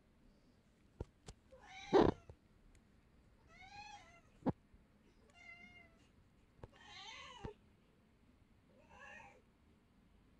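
Domestic orange tabby cat meowing five times, one call every second or two, the loudest call about two seconds in. A few sharp clicks fall between the meows.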